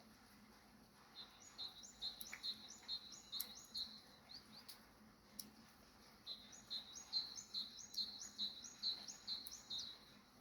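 A small songbird calling in two runs of repeated high chirps, each note sliding down, about three a second. The first run lasts about three seconds and the second starts about six seconds in and lasts about three and a half seconds.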